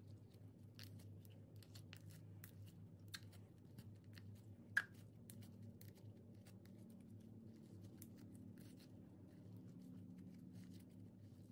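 Clay slime being worked by hand: faint, scattered sticky clicks and crackles, with one sharper click about five seconds in, over a low steady hum.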